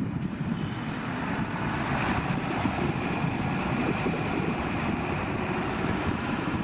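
Boeing 737-800's CFM56 turbofan engines heard as a steady rumbling rush with a faint high whine, wind buffeting the microphone.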